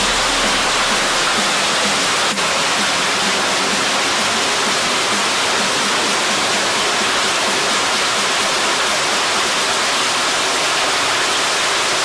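Small waterfall plunging through a rock cleft into a pool: a steady, loud rush of falling water, with a short dip about two seconds in.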